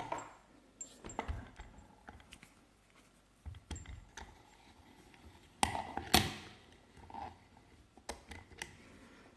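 Scattered light clicks and taps of hand handling, with two sharper clicks a little past halfway.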